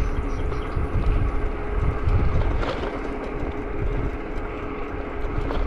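Riding noise on a bicycle along a busy road: wind rumbling on the microphone and traffic going by, with a steady faint hum underneath.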